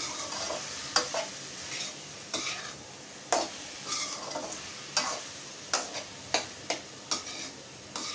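Metal spatula scraping and knocking against an aluminium kadhai, about once a second, while stirring onions, tomatoes and spices frying in oil, with a steady sizzle underneath.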